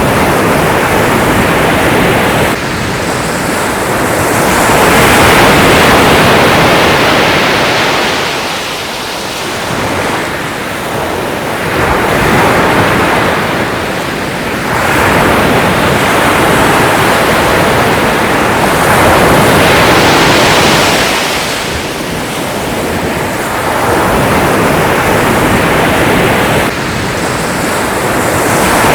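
Ocean surf breaking and washing ashore, a steady rush of water that swells and falls back every few seconds.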